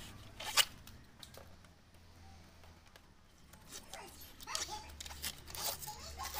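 Old polarizer film being scraped with a blade and peeled off the glass of an LCD TV panel, part of stripping the damaged film. There is a sharp snap about half a second in, then light scratching and a run of crackling rips over the last two seconds as the film lifts.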